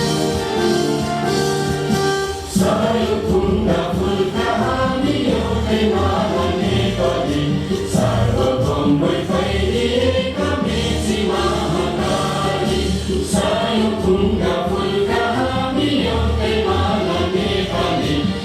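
Music with a group of voices singing, louder from about two and a half seconds in.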